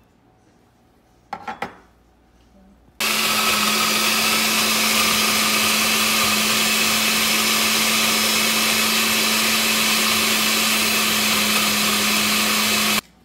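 Countertop blender motor running at a steady speed for about ten seconds, grinding onion, garlic, ginger and spices into a paste; it starts about three seconds in and cuts off abruptly near the end. A couple of small knocks come before it starts.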